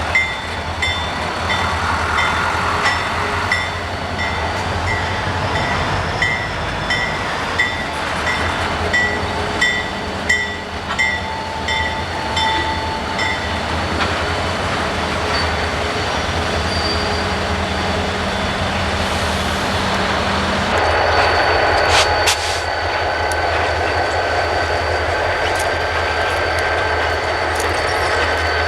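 Train rolling past, its wheels clicking over rail joints about twice a second over a steady low rumble. Later the clicks give way to a steady high-pitched wheel squeal.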